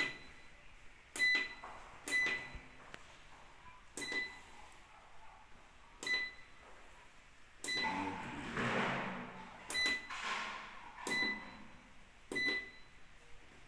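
Solar inverter control-panel buttons being pressed, each press giving a short high beep: about nine beeps spaced one to two seconds apart as the display is stepped through to the battery reading. A rustle of handling runs through the middle.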